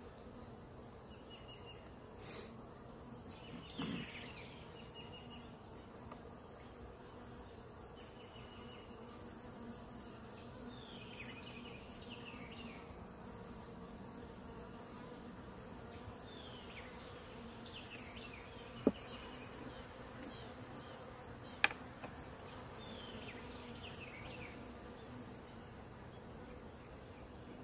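Honeybees buzzing in a steady hum over an opened hive. Two sharp clicks stand out about two-thirds of the way through.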